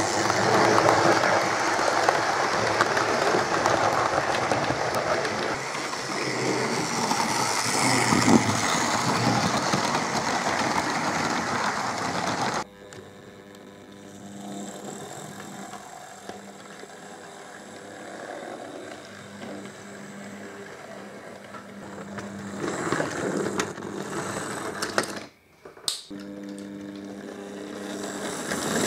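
OO-gauge model train running past close by, its wheels and motor making a loud continuous rattle on the track. About halfway through, the sound drops suddenly to the quieter, steady hum of a small model tank engine's electric motor running slowly, broken near the end by a brief gap and a click.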